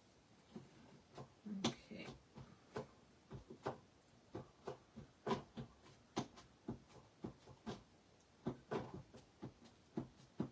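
Light, irregular taps and clicks, one to three a second, of stamping supplies being handled on a tabletop: an ink pad case moved and set down, and paper handled.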